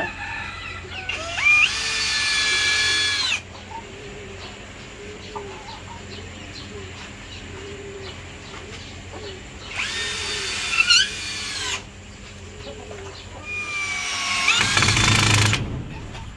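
Electric drill driving fasteners into timber, running in three bursts. Each burst whines up to speed and then holds a steady pitch.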